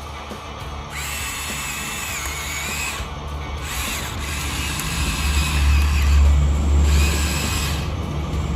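Electric gear motors of a Huina 1593 RC excavator whining in short runs, the pitch wavering as each movement is driven, with three separate runs.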